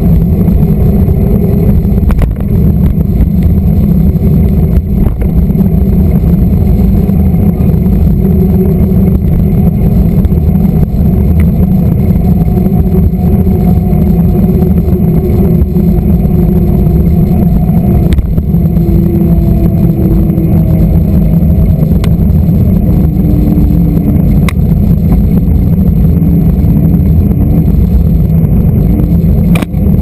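Steady roar of wind and a mountain bike's tyres rolling on asphalt, picked up by a camera mounted on the bike's fork, with a hum that slowly shifts in pitch and a few light clicks and rattles.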